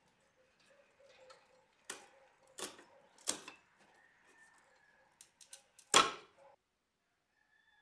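Laser-cut thin wooden pieces being pressed and popped out of their sheet by hand: a string of light wooden clicks and knocks, with a quick run of small ticks and then the loudest knock about six seconds in.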